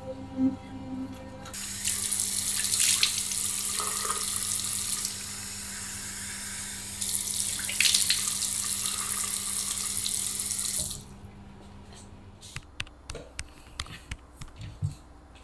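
Water running from a bathroom sink's mixer tap onto cupped hands and into the basin, a steady hiss that eases for a couple of seconds midway. The tap shuts off suddenly about eleven seconds in, leaving a few faint ticks.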